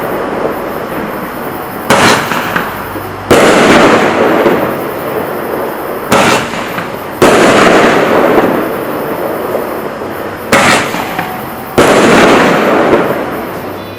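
Large consumer firework candle firing shots, very loud. Three times, a short sharp bang is followed about a second later by a bigger burst that trails off over a couple of seconds.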